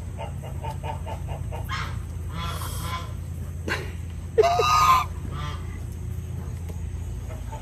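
Domestic poultry calling: soft, quick clucks in the first couple of seconds, then one loud call of about half a second a little past halfway, over a steady low rumble.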